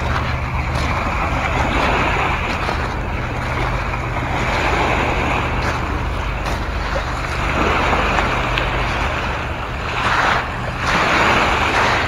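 Lake waves washing in over a pebble shore in repeated surges, the rush swelling and easing every few seconds and loudest near the end.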